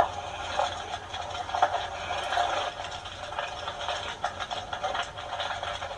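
Lava flow overrunning a house: a steady dense crackling, clinking and rattling of moving rock and burning debris, with many small sharp clicks.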